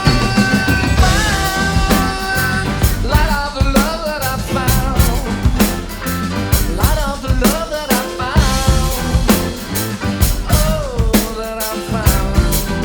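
A rock recording with singing plays, along with a drum kit part played on a Roland TD-30 electronic kit that triggers Superior Drummer 3's sampled acoustic drums. Steady groove with frequent snare and rimshot hits.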